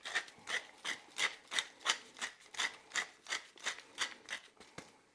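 Pepper mill grinding peppercorns in even, scraping strokes, about three a second, stopping shortly before the end.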